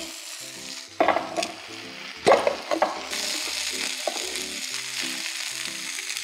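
Hot fried onion and tomato mixture still sizzling in a nonstick pan as a wooden spatula scrapes and stirs it out into a steel mixer jar, with a few sharp knocks of the spatula against the pan and jar. Soft background music plays underneath.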